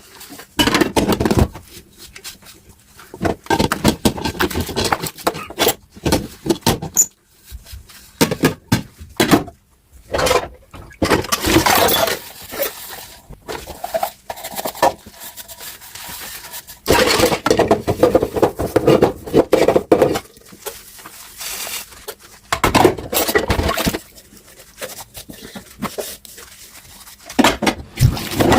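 Dishes being washed by hand: plates, glasses and cutlery clinking and clattering against each other and the sink, many separate knocks with longer noisy stretches in between.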